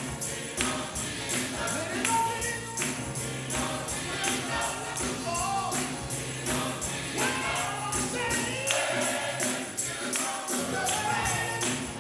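Gospel choir singing with instrumental accompaniment and a tambourine shaken in a steady rhythmic beat.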